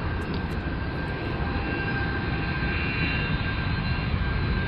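Airplane engines running steadily: a constant low rumble with a thin, steady whine above it.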